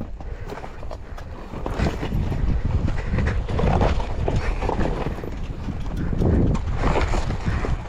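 Trail motorcycle being eased down a steep descent with its brake held: irregular knocks and clatter over a heavy, uneven rumble of wind on the microphone.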